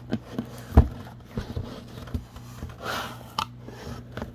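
Cardboard shipping box being opened by hand: a run of knocks, clicks and scrapes of cardboard, with one heavy thump about a second in and a short scraping rustle near the end.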